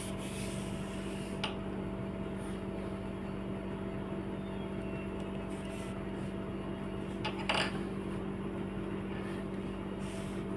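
A steady mechanical hum from a running motor, even in pitch. A sharp click comes about a second and a half in, and a short clatter about seven and a half seconds in.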